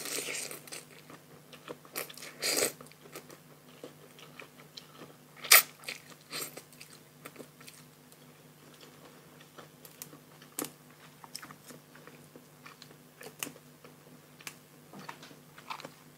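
A person eating close to the microphone: biting and chewing a spicy pounded rice-noodle salad with raw shrimp and fresh vegetables, with scattered crisp crunches and wet mouth clicks. The sharpest crunch comes about five and a half seconds in.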